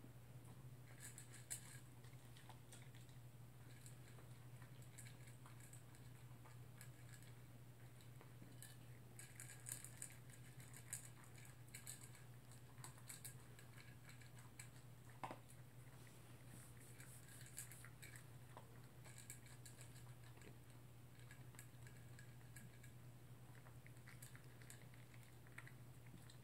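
Toy poodle eating dry kibble from its bowl: faint, irregular crunching and small clicks in scattered clusters, over a steady low hum.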